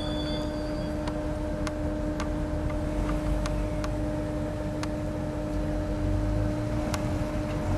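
Stadler FLIRT electric multiple unit running, a steady electric hum over a low rumble, with scattered sharp clicks; the rumble swells near the end.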